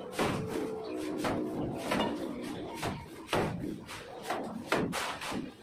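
Shovels scraping wet cement-sand mortar up off a concrete floor and mortar slapped onto a brick wall, an irregular run of sharp scrapes and splats about every half second to a second.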